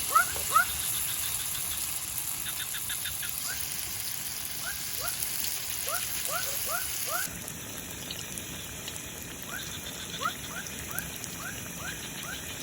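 An animal's short rising chirping calls, repeated about twice a second in runs of several, over a steady high hiss.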